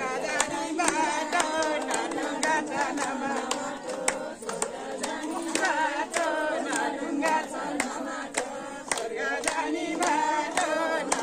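A group of voices singing a devotional bhajan together, with steady rhythmic hand-clapping in time, about two to three claps a second.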